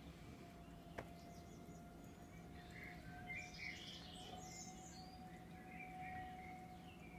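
Birds chirping faintly in short bursts over a steady background hum with a thin continuous tone; a single click about a second in.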